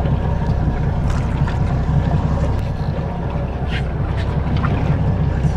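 Steady low rumble of wind and water around a boat at sea, with a few faint clicks.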